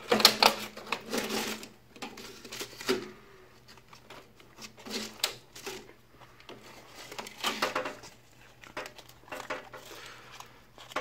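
Rustling and crinkling handling noises in a small room, coming in several separate bursts, the loudest at the very start.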